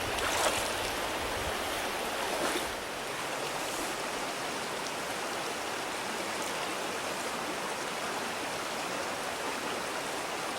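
Stream water flowing over rocks, a steady rush, with two short louder moments in the first three seconds.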